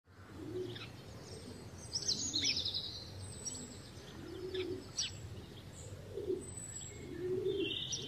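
Outdoor birdsong: a pigeon cooing in short, low, repeated phrases, with higher chirps and brief trills from small songbirds.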